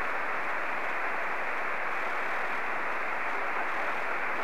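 Steady static hiss from a Yaesu FT-897 radio receiving in single sideband on the FO-29 satellite's 70 cm downlink, with no station coming through. The hiss is narrow and muffled, with no highs.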